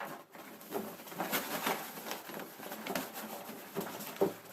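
Cardboard and plastic packing being pulled and worked by hand, with irregular rustling, scraping and small knocks as a tight outer cover is forced off a boxed keyboard.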